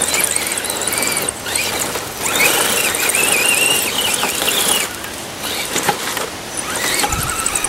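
Electric motor and gears of a radio-controlled scale crawler truck whining in several stretches, the pitch rising and falling as the throttle is worked on a gravel climb.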